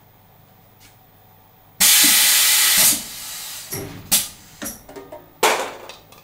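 Pneumatic blow moulding machine cycling: a loud burst of compressed-air hiss about two seconds in that lasts about a second, then a string of shorter, sharp air blasts as its pneumatic cylinders and valves exhaust.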